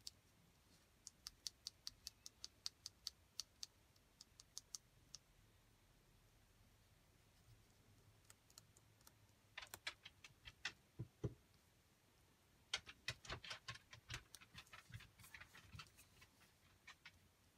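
Light, irregular clicking and tapping of small hardened wax pieces and seals being handled and slid about on a craft mat, in three flurries of quick clicks with pauses between.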